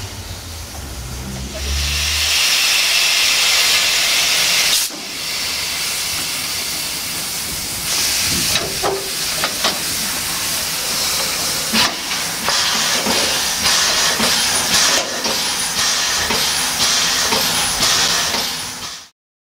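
Narrow-gauge steam locomotive 99 1734-5 hissing loudly with escaping steam, after a low rumble in the first two seconds. Scattered sharp metallic knocks and clanks come through the hiss as the coupling and hoses are handled.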